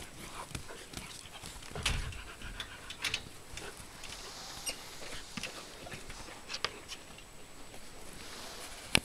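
Alaskan malamute puppies play-fighting: scuffling and panting, with scattered sharp knocks and scrapes, the sharpest one near the end.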